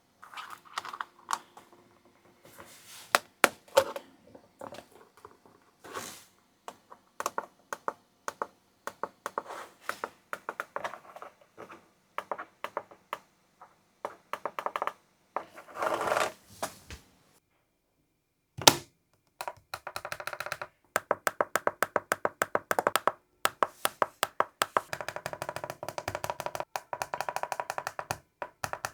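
Scattered clicks and knocks of small plastic parts being handled, then, from about twenty seconds in, long runs of rapid, evenly spaced clicks as the fidget button is pressed over and over.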